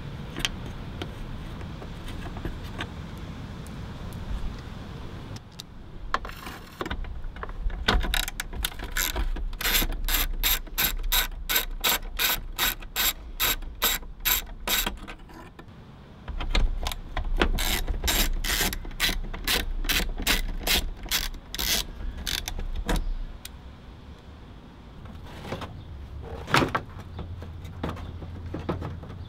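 Hand ratchet clicking as it backs out the 8 mm screws holding a car headlight, in two runs of about four clicks a second, with a single knock near the end.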